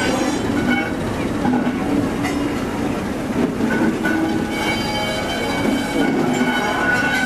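Train of a Class 73 electro-diesel locomotive and coaches passing slowly at close range on street-running track, wheels clattering over the rails. A high-pitched steady squeal comes in about halfway through as the coaches roll by.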